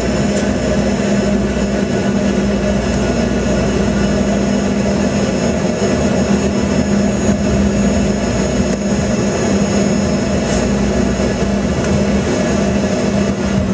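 Jet airliner's engines at taxi power, heard inside the cabin as a steady hum with a faint high whine.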